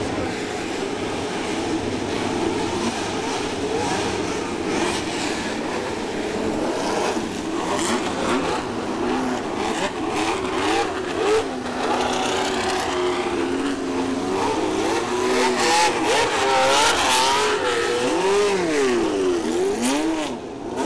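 Several vintage Formula 1 car engines running together, with throttle blips and revs rising and falling. The revving gets busier and louder in the second half.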